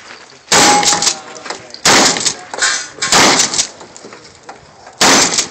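Four rifle shots fired slowly, roughly one every second and a half, each a sharp crack with a short echo. A brief ringing tone follows the first shot.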